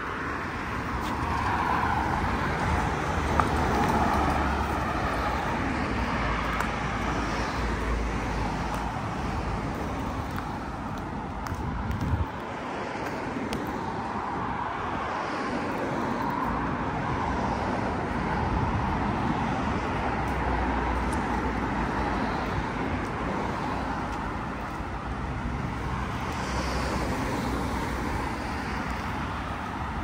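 Steady road-traffic noise from cars, an even rushing sound with a low rumble that holds level throughout, with no single car standing out.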